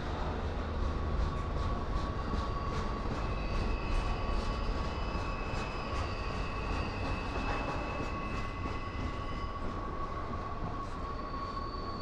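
Double-stack intermodal freight train's well cars rolling past close by: a steady low rumble with wheels clicking over the rails and a thin, steady high-pitched squeal over it.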